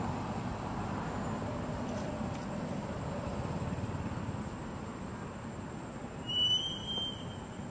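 Steady outdoor background noise, with one short, clear, high-pitched call about six seconds in, lasting under a second.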